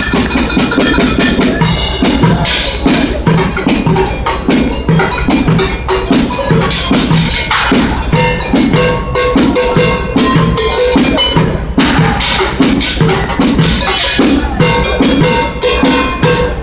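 Street drummer playing a fast, busy rhythm with drumsticks on upturned plastic buckets, steel pots, cans and a cymbal. Low thumps mix with quick metallic clanks, and a metal pot rings through the second half.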